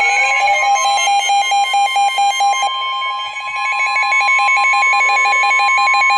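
Weather alert radio sounding its alarm: rapid, evenly repeating electronic beeps over a steady alert tone, signalling an incoming warning. Right at the end the beeping stops and the steady tone carries on.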